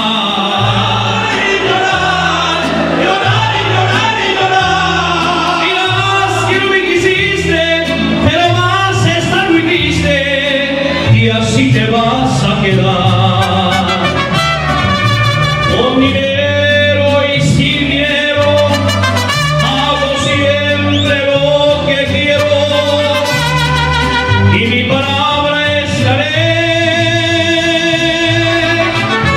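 Mariachi band playing a song: two trumpets and violins carry the melody over a guitarrón bass line that steps back and forth between notes, with strummed guitars beneath.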